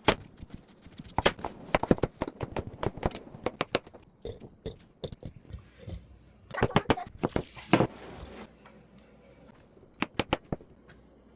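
Household objects being handled: clusters of sharp clicks, knocks and scrapes, with two quieter gaps and a last quick run of knocks near the end.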